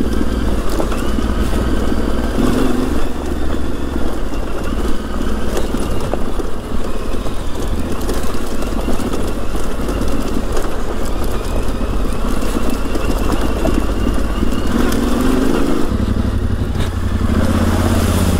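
Yamaha Ténéré 700's 689 cc parallel-twin engine running steadily as the bike is ridden, with scattered sharp clicks and knocks. About sixteen seconds in, the low engine note grows stronger.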